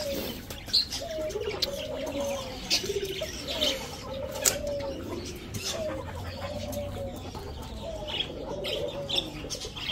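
Domestic pigeons cooing, a rising-and-falling call repeated about once a second, with occasional wing flapping and short sharp high chirps.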